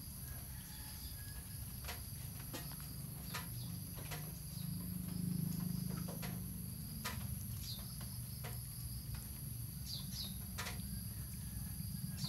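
Outdoor background: a steady high-pitched insect drone, with a few short bird chirps in the second half and scattered faint clicks and handling rustle as a puppy shifts in a lap.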